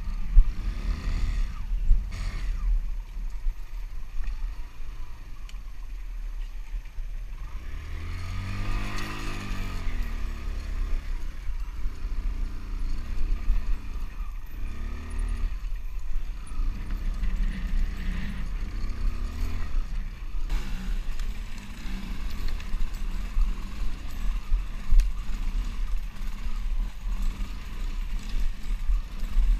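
Off-road motorcycle engine running under the rider, revving up and down several times, with heavy wind buffeting on a helmet-mounted microphone.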